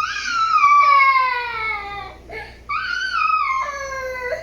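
A young child crying: two long, high-pitched wails, each sliding down in pitch, with a brief break between them.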